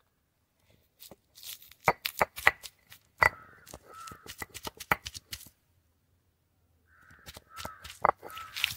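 Crows cawing a few times, in two short bouts, over irregular sharp clicks and knocks. The sound is quiet for about a second and a half just past the middle.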